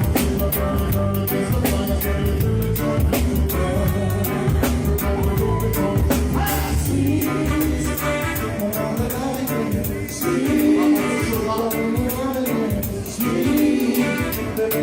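Live reggae band playing, with a pulsing bass line, drum kit and guitar; a singer's voice comes in about halfway through.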